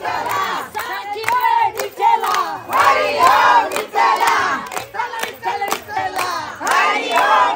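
A crowd of many voices shouting and chanting together at once, with sharp claps or clicks among them.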